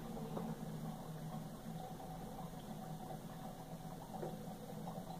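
Faint trickling of water swirling down through a tornado-in-a-bottle connector from the upper plastic bottle into the lower one, over a steady low hum.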